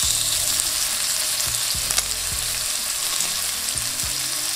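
Seasoned lamb chops sizzling in hot oil in a nonstick frying pan as they are turned over with tongs, with one sharp click about two seconds in.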